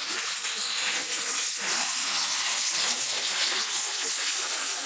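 Steady, loud hiss like static or white noise, even throughout, with no tone or rhythm in it.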